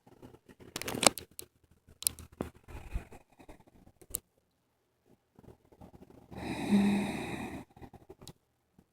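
A sleeping person lets out one loud, breathy snort-like sleep noise with a short low hum in it, about six and a half seconds in. Before it come a few seconds of scattered clicks and rustling, then a stretch of near quiet.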